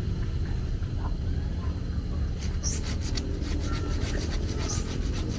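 Hand pruning saw cutting an apple tree branch: runs of short rasping strokes about halfway through and again near the end, over a steady low rumble.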